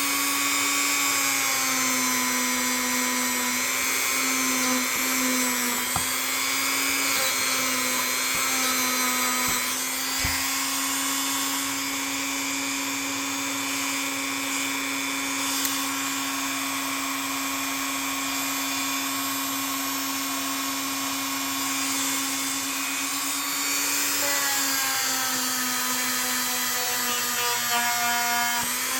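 Small electric power tool motor running steadily with a whine, its pitch dipping slightly now and then as it is loaded, typical of buffing a knife with rubbing compound.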